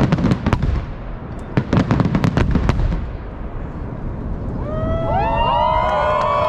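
Fireworks salute volleys: two rapid clusters of sharp bangs from shells bursting, over a low rumble. From about five seconds in, a crowd starts cheering with long, drawn-out shouts.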